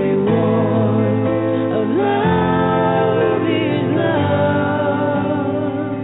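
Recorded worship song: a woman sings a slow, flowing melody over a gentle acoustic guitar accompaniment.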